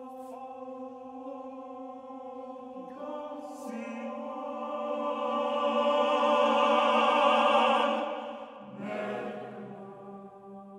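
Choir singing a cappella in long held chords, swelling to a loud peak in the middle and falling away about eight seconds in, after which lower voices come in.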